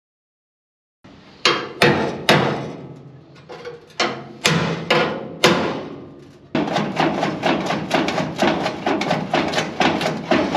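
Hammer blows on a car's steel body panel, driving a screwdriver like a chisel into a panel seam to split off the old quarter panel, each blow ringing. A few separate strikes start about a second in, then after a short pause a steady run of about three blows a second.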